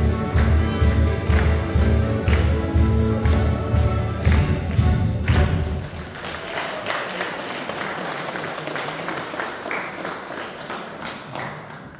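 A folk band (kapela) plays the end of a song over a steady bass beat, stopping a little before halfway through. Audience applause follows and slowly fades.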